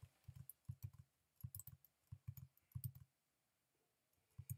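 Faint clicking of computer keyboard keys and mouse buttons while spreadsheet formulas are entered and copied. A quick run of clicks lasts about three seconds, and two more come near the end.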